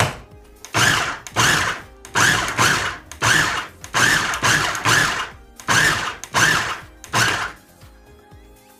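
KitchenAid food processor pulsed in short bursts, about a dozen, often two close together, chopping cucumber; pulsing rather than running it keeps the cucumber coarse. The pulsing stops near the end.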